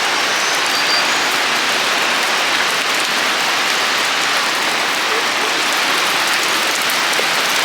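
Steady, even rush of falling water, as from a waterfall heard up close.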